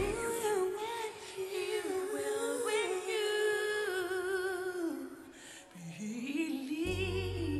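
Slow song with a woman singing long, held notes with vibrato over sparse accompaniment; a deep bass comes back in near the end.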